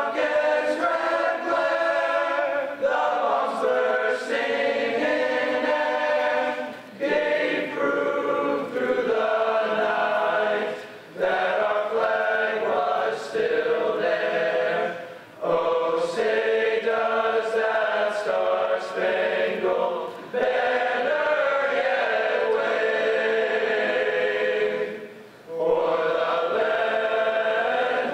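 A male choir of about a dozen teenage boys singing a cappella, in held chords. The phrases run three to five seconds each, with short breaks between them for breath.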